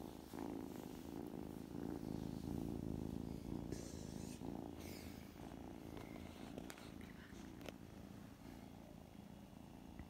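A kitten purring close to the microphone, a steady low rumble that is strongest in the first few seconds and eases off towards the end.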